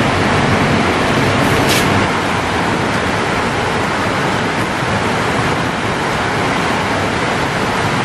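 Heavy rain pouring down, a loud, steady, even hiss.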